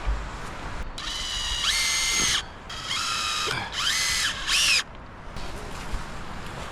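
Cordless power drill run in four short trigger pulls, its motor whining up to speed and winding down each time, over low wind rumble.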